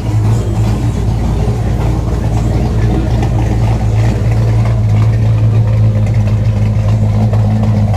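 Car engine idling, a steady low drone that holds the same pitch throughout.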